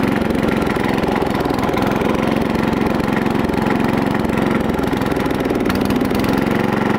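Small garden tractor engine running unevenly, its note wavering, then settling into a steadier run about six seconds in. It is a misbehaviour that the owner puts down to water in the gas or a loose kill wire.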